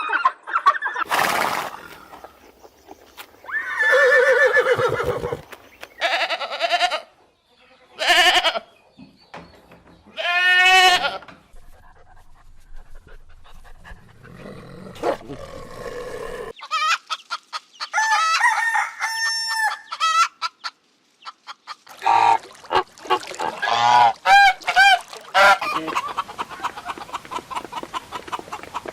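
A run of different animal calls, one after another, each lasting a second or two with short gaps between, several of them pitched and quickly repeated.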